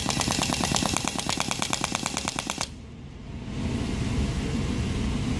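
Small RC nitro engine running with a fast, rattling exhaust note, then cutting out suddenly about two and a half seconds in. A lower, duller rumble follows.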